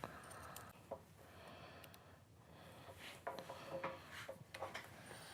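Faint clicks and scrapes of a hand tool on bolts in the metal base of a laser stand, some with a brief metallic ring, as the bolts are loosened and removed.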